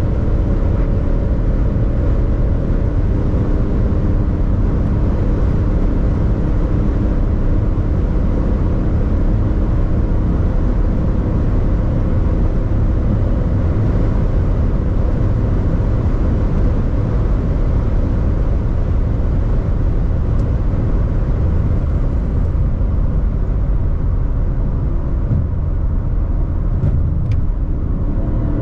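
Alpina XD3's quad-turbo 3.0-litre straight-six diesel running flat out at high speed, mixed with a steady rush of wind and tyre noise and no rise or fall in pitch.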